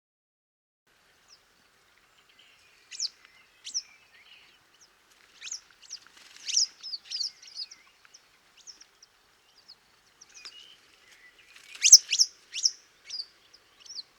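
A small bird singing: short, sharp high notes that sweep down in pitch, given in irregular bursts, with the loudest cluster about twelve seconds in.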